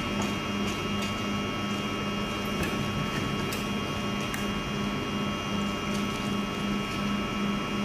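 A machine's steady low hum, pulsing about four times a second, with steady high-pitched whines over it and a few faint clicks.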